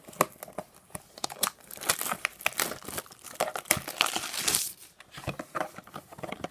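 Plastic wrapping on a trading-card booster box being torn and crinkled, a run of sharp crackles with a longer tearing rip past the middle.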